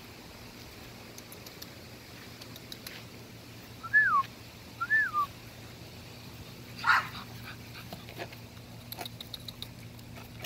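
Seven-week-old American Bully puppy whimpering: two short high whines about a second apart, each rising and then falling, followed a couple of seconds later by a brief rough yelp.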